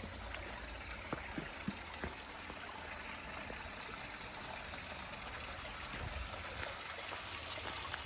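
Small stream trickling and splashing over rock ledges into a shallow pool, a steady rush of water. A few light clicks come between one and two seconds in.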